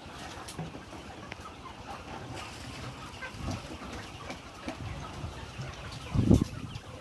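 Young layer chickens clucking and calling in a scattered, busy way, with a loud low thump about six seconds in.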